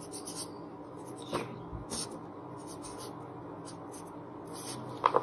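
Marker pen writing on paper: a series of short, faint scratchy strokes.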